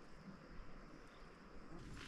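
Near silence: faint background with a thin, steady high tone that stops near the end.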